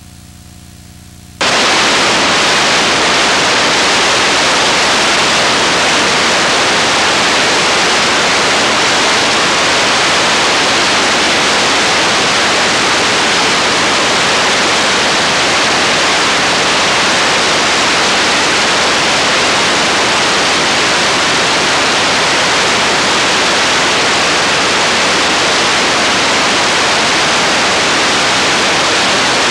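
A faint low hum, then about a second and a half in a loud, steady, even hiss cuts in abruptly and holds without change.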